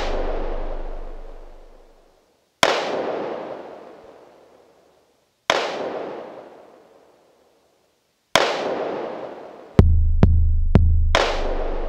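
Drums of a dub-style instrumental recorded on a loop station and played back at half speed: single heavy hits, each with a long reverb tail dying away over about two seconds, come roughly every three seconds, then four booming hits with deep bass follow in quick succession near the end.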